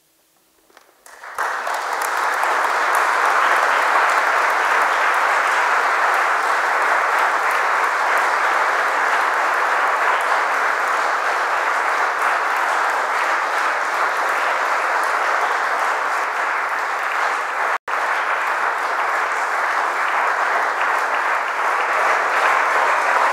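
Large concert audience applauding: a few scattered first claps about a second in, then sustained, steady applause.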